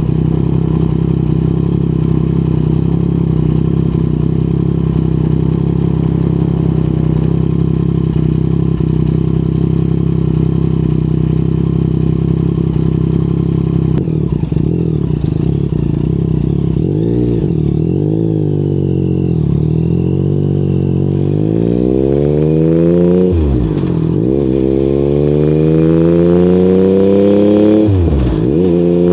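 Yamaha MT-09's CP3 three-cylinder engine through an Akrapovic exhaust, running at a steady idle for about the first half, then rising and falling in pitch as the bike pulls away and accelerates, with sharp drops in revs at two gear changes near the end.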